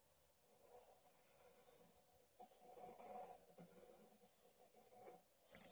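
Pencil scratching on paper as a circle is traced around the inside of a plastic circle template, with a short pause about two seconds in. A louder, brief scrape comes right at the end.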